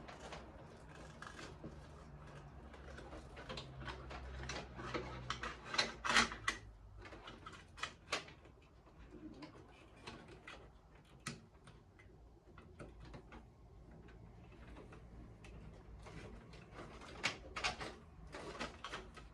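Irregular clicks, taps and light knocks of computer parts being handled during a PC build, with a low hum under the first few seconds.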